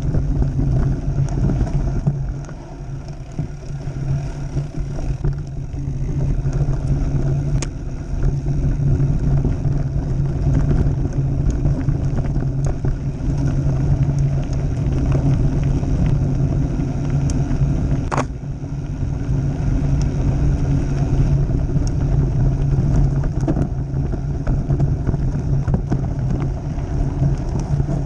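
Mountain bike rolling fast down a dirt and gravel trail: a steady rumble of knobby tyres on the ground and wind buffeting the microphone, with the bike rattling and a couple of sharp knocks, the clearest about 18 seconds in.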